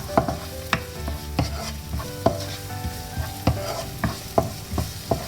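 Spatula stirring chopped tomatoes and onions frying in ghee in a pan, tapping sharply against the pan about twice a second over a light sizzle.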